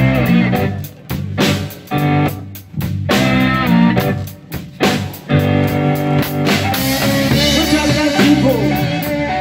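Live blues band with electric guitar, bass and drum kit playing a stop-start riff, the band cutting out briefly about once a second, then playing on continuously from about halfway through.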